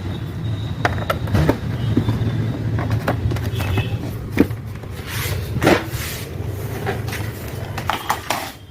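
Cables and connectors being plugged into the back of a Dell all-in-one computer: scattered clicks and knocks of plastic plugs and handling, the sharpest about four and a half and nearly six seconds in, over a steady low hum.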